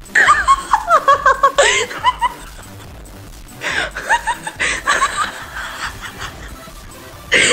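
Laughter played back from a phone voice message, in two fits: one over the first two seconds or so, another starting about three and a half seconds in, with a short burst near the end.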